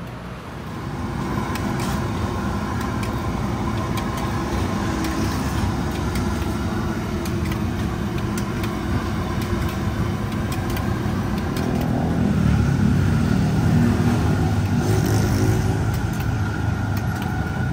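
Street traffic: motor vehicle engines running nearby as a steady low rumble, swelling for a few seconds about twelve seconds in as a vehicle comes close.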